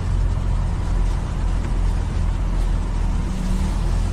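Semi-truck diesel engine running steadily at low speed, heard from inside the cab as a constant low drone.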